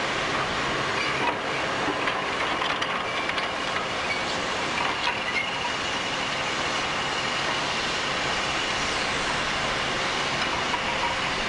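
Scrapyard crawler crane working a lifting magnet: a steady mechanical running noise with a faint whine and a few scattered metallic clinks.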